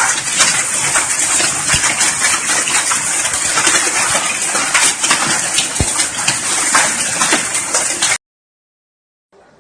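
Volcanic stones falling from the sky in a heavy shower: a dense, steady clatter of many small impacts, like a hailstorm. It cuts off suddenly about eight seconds in.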